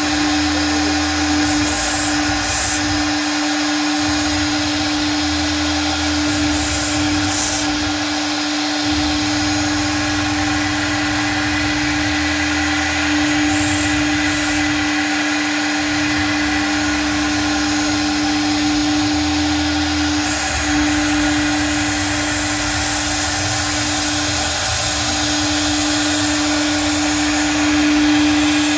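CNC router spindle running steadily with a single steady whine while it cuts a sheet, with a lower hum that comes and goes every few seconds as the machine moves.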